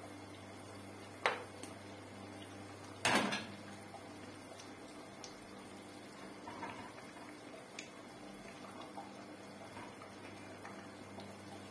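Kitchenware clinking as fried eggplant pieces are moved from a plate into a pot of tomato sauce: a sharp click about a second in, a louder clatter about three seconds in, then a few faint taps, over a steady low hum.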